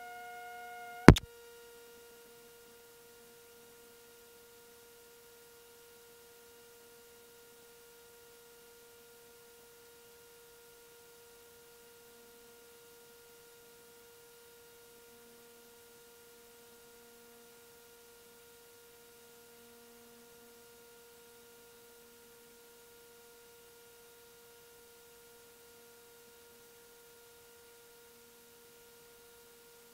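A sharp click about a second in, then a faint, steady electronic hum: one held tone with several overtones that does not fade.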